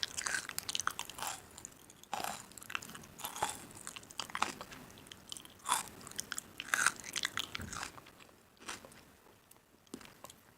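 A person biting and chewing crisp, crunchy food: irregular loud crunches with quieter chewing between them, thinning out in the last few seconds.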